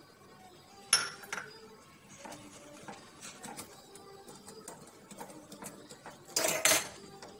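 Spoon clinking and scraping against a bowl while stirring wet muffin batter. There is a sharp clink about a second in, light ticks as it goes round, and a louder clatter near the end.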